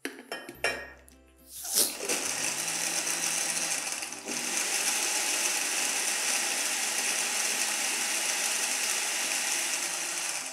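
A few knocks, then an electric countertop blender starts about two seconds in and runs steadily, crushing ice cubes with mint, lime and cold water for a mojito. It steps up to a higher speed about four seconds in and cuts off at the end.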